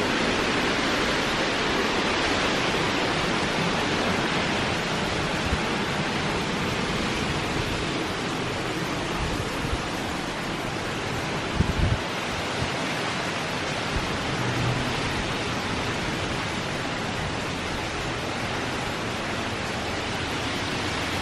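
Strong hurricane wind blowing steadily, a dense rushing noise, with a few brief low buffets on the microphone about twelve seconds in.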